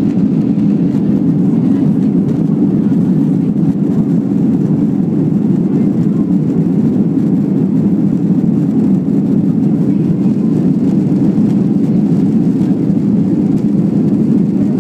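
Steady low rumble of a Ryanair Boeing 737-800's jet engines and the air rushing past, heard from inside the cabin as the plane climbs after take-off.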